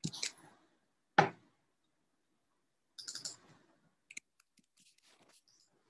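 Scattered clicks from a computer mouse and keyboard: a sharper click about a second in, a short cluster around three seconds, then a few faint light ticks.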